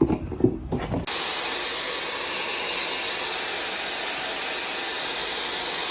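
Hair dryer switched on about a second in, then running steadily with an even, loud hiss of blowing air.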